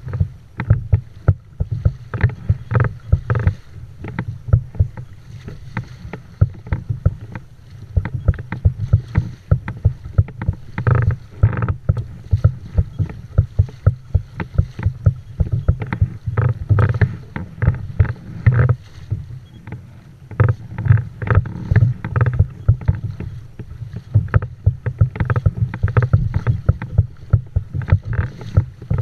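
Kayak moving through choppy sea: water slapping and splashing against the hull in irregular, rapid knocks, over a steady low wind rumble on the microphone.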